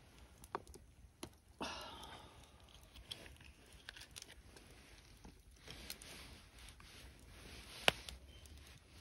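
Eating from an aluminium mess tin: scattered clicks and a short scrape as utensils work in the tin, with quiet chewing. A sharp click near the end is the loudest sound.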